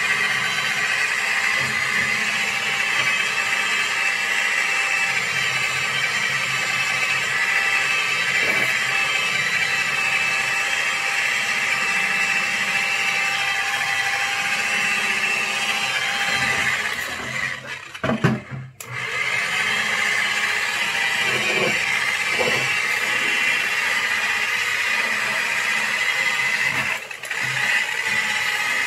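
An electric buffer with a buffing pad runs steadily on a low speed setting, polishing rubbing compound into a headlight lens. It stops for about two seconds past the middle, then starts again, and it dips briefly near the end.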